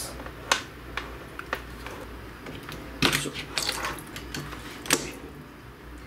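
Scattered clicks and knocks of hard plastic being handled as a small Eheim submersible pump and its hose are set into a bowl of water, with a quick cluster of them about three seconds in.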